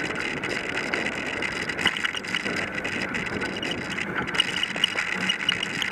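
Bicycle rolling along a gravel trail: steady tyre noise with many small rattles and clicks from the bike.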